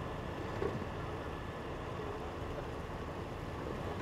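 Steady low rumble of a tow truck running its winch, dragging a submerged landscaping truck up the boat ramp through the water, with a brief knock under a second in.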